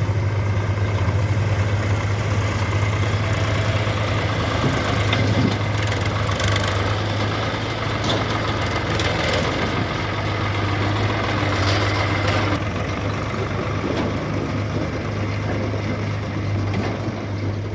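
Diesel engines of a backhoe loader and tractors running steadily, with a constant low drone.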